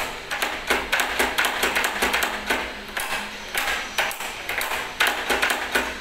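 Key being worked in a Godrej Ultra XL+ Twinbolt rim lock: a rapid run of sharp metallic clicks and clacks from the lock mechanism, with the keys on the ring clinking, pausing briefly a few times.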